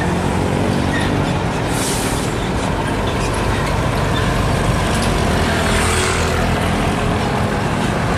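Hino tanker truck's diesel engine running steadily as the truck drives past, with two short air hisses about two and six seconds in.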